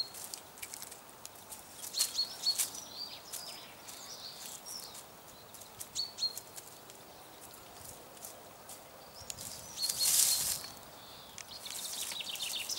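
Hens scratching and pecking through dry leaf litter and twigs: irregular rustling and crackling, with a louder rustle about ten seconds in. A few short, high bird chirps come through now and then.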